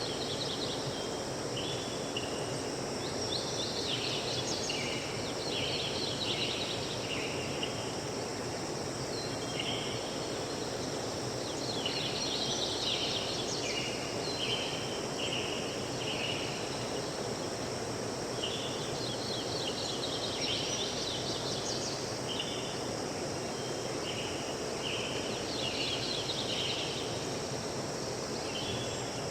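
Nature ambience: a steady rushing wash of water and wind, with small birds chirping in short high phrases that come and go every few seconds.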